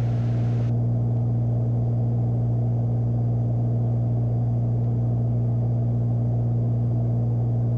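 Beechcraft Bonanza's six-cylinder piston engine and propeller droning steadily in flight, heard inside the cabin as a constant low hum with wind noise.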